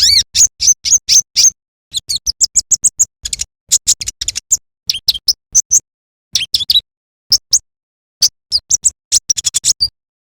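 Konin (kolibri ninja) sunbird singing a fast series of short, high chirps and twittering notes, some sliding down in pitch, in quick bursts. The song stops just before the end.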